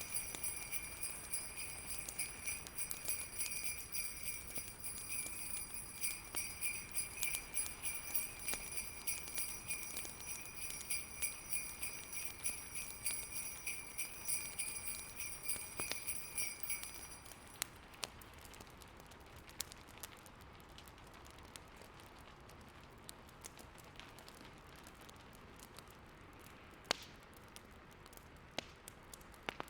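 Sleigh bells jingling in a quick shaking rhythm, stopping about seventeen seconds in. After that, fireplace crackling with scattered sharp pops over a faint steady hiss.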